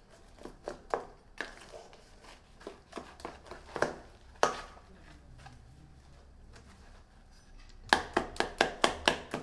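Food-prep knocks: a kitchen knife slicing bread down onto a cutting board, with a spoon working paste in a metal mixing bowl. Scattered taps at first, a short lull, then a quick run of sharp knocks near the end.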